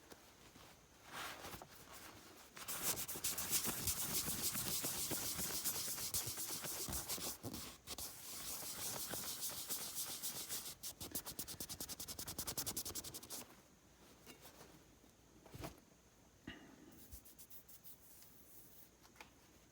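Fast hand rubbing or scrubbing on the metal parts of an air compressor pump, in quick repeated strokes. It starts about three seconds in, breaks off briefly near the middle and stops about two-thirds of the way through, followed by a few light knocks.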